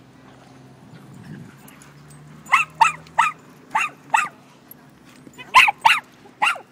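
A dog barking: a quick run of five short, sharp barks a couple of seconds in, then three more near the end.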